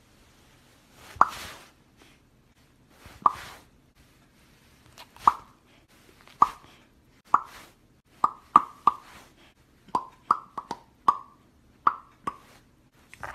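A series of short, hollow popping clicks, about fourteen, made by a person's mouth in time with a finger booping a golden retriever puppy's nose. They come about two seconds apart at first, then quicker and closer together in the second half.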